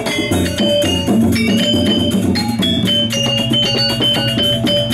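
Balinese gamelan gong kebyar ensemble playing: bronze metallophones ringing in rapid notes over a barrel drum and gongs, with a low tone held from about a second in.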